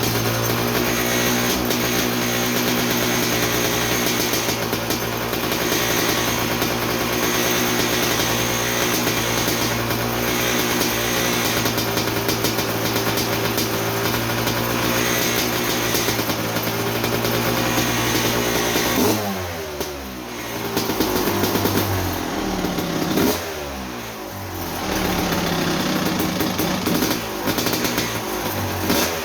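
1987 Kawasaki KX250 single-cylinder two-stroke engine running at steady revs. About two-thirds of the way in, the revs start falling away and picking back up, about three times.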